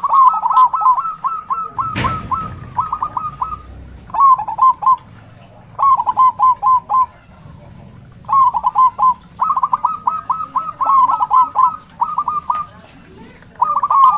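Zebra dove (perkutut) singing its rapid staccato cooing song: runs of quick, even notes in about six phrases separated by short pauses. A single sharp knock comes about two seconds in.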